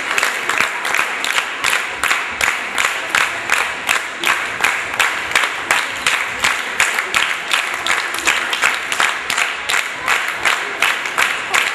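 An audience clapping together in a steady rhythm, about three claps a second, over a bed of general applause.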